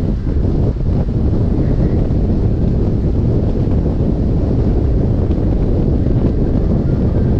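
Wind buffeting the camera's microphone in an open-top car at road speed: a steady, loud low rumble.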